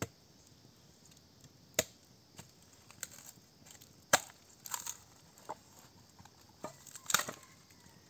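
A bamboo cooking tube being chopped and split open: a series of sharp, irregular chops and cracks of wood, the loudest about two, four and seven seconds in.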